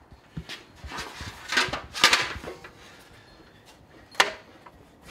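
Sheet metal clanking and rattling against a hand-cranked slip roll as it is handled and fed between the rollers. Light clicks come first, then two louder rattling clatters about a second and a half and two seconds in, and a single sharp clank near the end.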